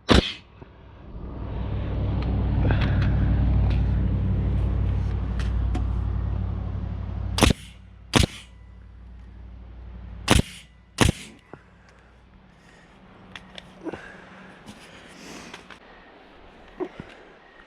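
An engine running with a deep steady hum that stops about seven seconds in. It is followed by four sharp bangs in two pairs, each pair under a second apart, then a few softer clicks.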